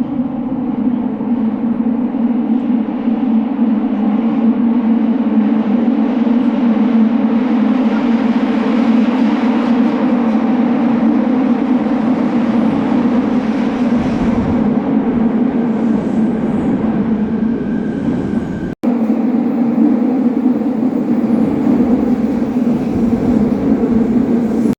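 Subway train running, heard from inside the car: a loud, steady running noise with a low hum. The sound drops out for an instant about 19 seconds in.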